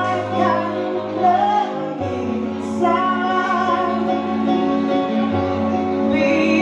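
Live band music: a woman sings into a microphone over guitar and a held low bass line. The bass moves to a lower note about two seconds in.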